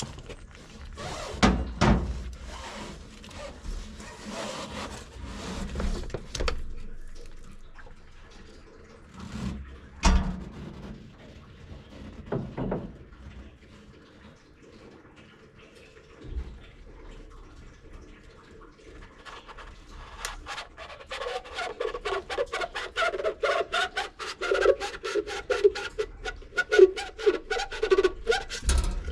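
Ratchet wrench with a 32 mm socket unscrewing a combine's cartridge oil filter housing: scattered knocks and clicks at first, then from about two-thirds of the way in a fast run of ratchet clicks, about five a second, over a wavering squeak.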